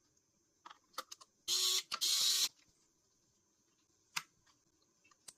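Small hardware being fitted on a PC motherboard: a few light clicks, then two short whirring bursts of half a second each, like a small motor running briefly, about a second and a half in, and single sharp clicks later on.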